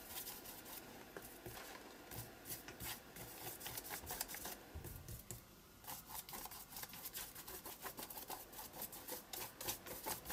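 Paintbrush bristles dragging across paper as watered-down white gesso is worked and feathered into a collaged journal page: a run of faint, quick scratchy strokes, easing off briefly about five seconds in.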